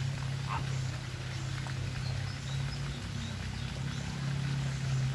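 Flamingos giving a few short calls near the start, over a steady low hum, with faint high chirps about two seconds in.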